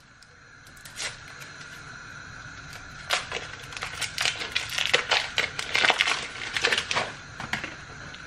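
Foil wrapper being peeled off a chocolate orange and crinkled in the hands: a dense run of small crackles and rustles from about three seconds in.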